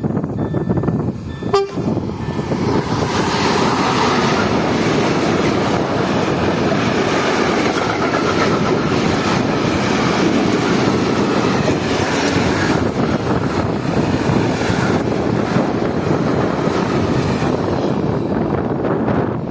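Freight train of tank wagons rolling past at speed, with a steady, loud noise of wheels on rail. A single sharp click comes about a second and a half in, and the noise swells just after and holds steady.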